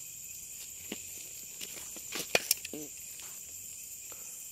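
Night insects, crickets among them, chirring steadily in a high, even drone. About halfway through, two sharp clicks come a fraction of a second apart.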